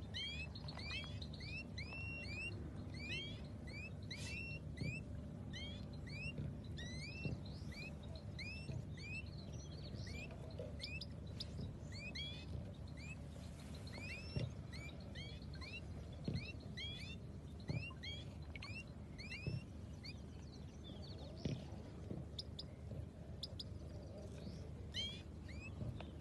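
Caged finches calling over and over in short upswept chirps, about two or three a second at first, then thinning out and more spaced over the second half.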